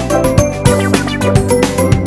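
Background music with a steady beat and electronic keyboard or synthesizer notes.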